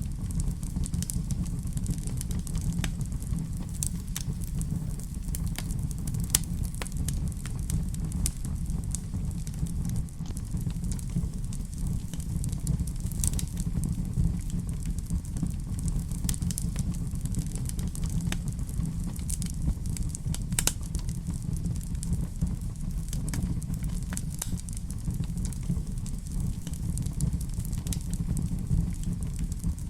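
Wood fire burning in a fireplace: a steady low rumble with frequent irregular crackles and sharp pops.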